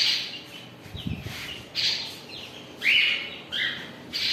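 Pet parakeets calling: a run of short, harsh screeches, roughly one a second, some sliding down in pitch.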